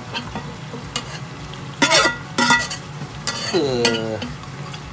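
Boiled beef feet sliding from a metal pot into hot curry paste and oil, sizzling, with a metal slotted skimmer clanking and scraping against the pots; a few loud clanks about two seconds in.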